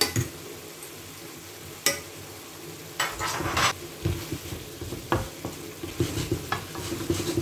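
Wooden spatula stirring and scraping greens in a steel frying pan, with a gentle sizzle underneath. A couple of sharp clicks come in the first two seconds, and the stirring, with repeated scrapes and knocks against the pan, runs from about three seconds in.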